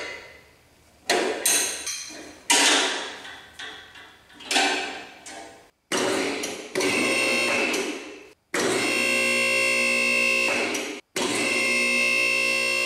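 A handful of sharp clanks, each ringing out briefly. Then the two-post lift's electric hydraulic power unit runs with a steady hum and whine in three or four stretches, stopping briefly between them, pumping fluid with the return line disconnected.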